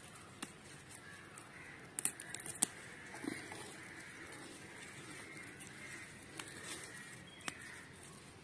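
Basil leaves rustling and small stems snapping as sprigs are picked by hand, with a quick cluster of sharp clicks about two seconds in and single clicks near the start and near the end.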